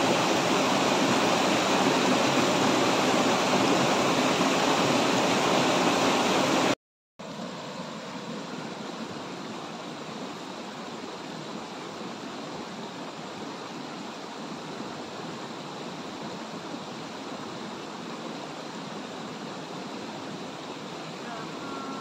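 Water rushing steadily over a small rocky waterfall, loud and even. About seven seconds in it cuts out abruptly for a moment, then a shallow stony stream flows on, more quietly.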